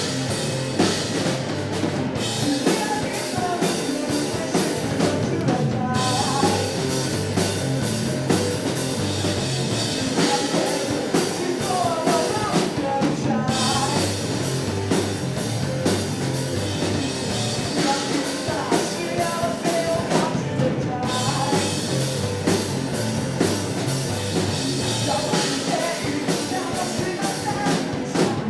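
Rock band playing an original song live, with a drum kit keeping a steady beat, bass and guitars underneath, and a vocalist singing.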